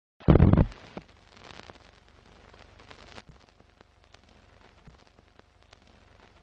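Old-film crackle sound effect under an animated film countdown leader: a loud short burst about a quarter second in, then faint hiss with scattered clicks and pops.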